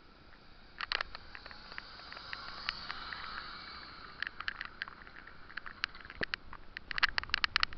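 Kick scooter wheels rolling on rough asphalt, a faint steady hiss with a scatter of sharp clicks and rattles that come thick and fast near the end.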